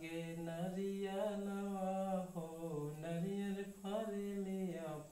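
A man's voice singing slowly in long held notes that slide from pitch to pitch, with short breaks between phrases and no clear words.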